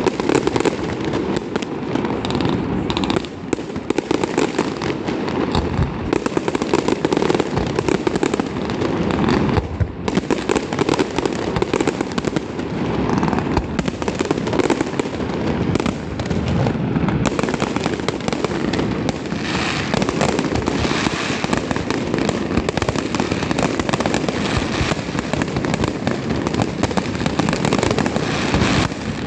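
Fireworks going off in a dense, continuous barrage of bangs and crackles, with no pauses between them.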